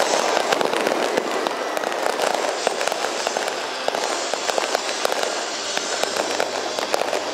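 Aerial fireworks bursting overhead: a dense, rapid run of sharp pops over a steady noisy rumble of explosions.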